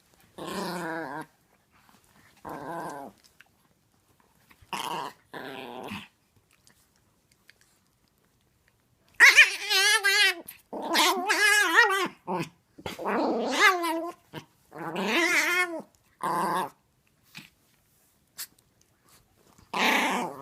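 A Chihuahua making play growls and grumbles with a wavering, warbling pitch, gremlin-like rather than doglike, in bursts with silent gaps between. A few short calls come in the first six seconds, the loudest and longest run from about nine to sixteen seconds in, and one more call near the end.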